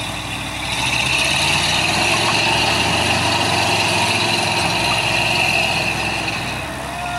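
Lifted mud truck engine running hard at steady high revs under load as it tows a stuck pickup out of the mud on a strap. The engine builds about a second in and eases off near the end.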